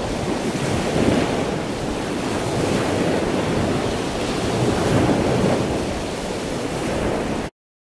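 Steady rushing noise with a few gentle swells, cutting off suddenly near the end.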